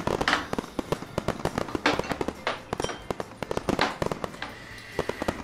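Fireworks sound effect added in editing: dense crackling with several louder bursts of fizz.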